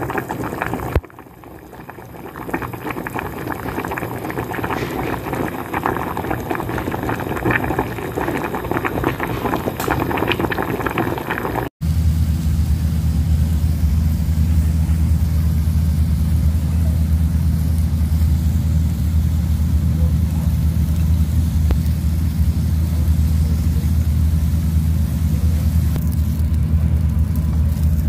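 Pot of water with fettuccine at a rolling boil, bubbling and crackling. About twelve seconds in it cuts suddenly to a steady low mechanical hum.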